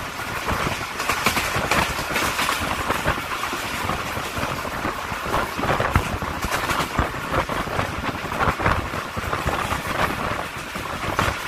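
Awam Express passenger train running at speed, heard from aboard at an open window: a steady rush of wheel and rail noise with frequent irregular clacks and rattles.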